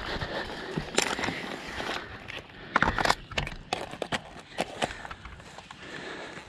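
An airsoft player's footsteps on leaf litter, slowing as he crouches behind a plastic barrier, with scattered sharp clicks and knocks from gear being handled; a tight cluster of clicks comes about three seconds in.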